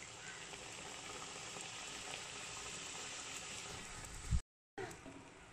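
Samosa deep-frying in a pan of hot oil, the oil sizzling and bubbling steadily around it. About four seconds in there is a short low thump, the sound drops out for a moment, and then the sizzle comes back quieter.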